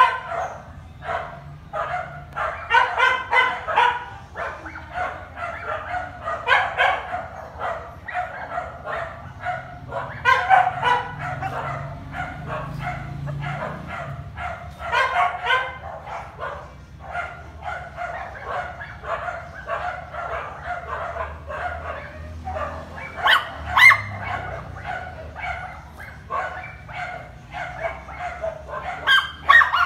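Dogs barking and yapping in repeated short volleys, with brief pauses between, the loudest volley a little before the end.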